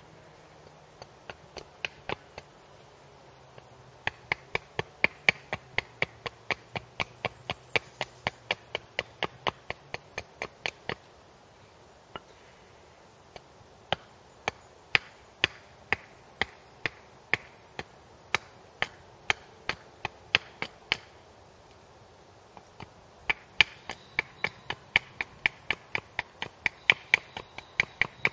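Back of a hatchet tapping the spine of a knife to drive the blade through wood while shaping a wooden splitting wedge: quick, sharp knocks about three a second, in three runs with two short pauses.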